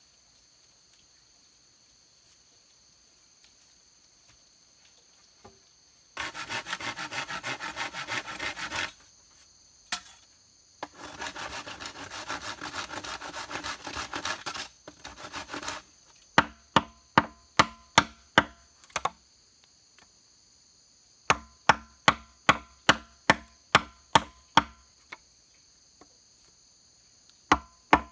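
A steady high insect drone at first, then a hand saw cutting through a bamboo pole in two spells of quick back-and-forth strokes. After that a blade chops into a bamboo stem in runs of sharp strokes, about three a second, with short pauses between runs.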